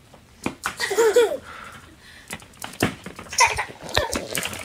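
Hollow plastic ball-pit balls clicking and clattering against each other, with a high-pitched squealing laugh about a second in and a shorter high cry near the end.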